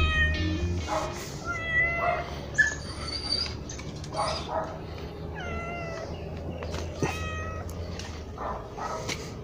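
Domestic cat meowing repeatedly: about six short meows, each under a second long.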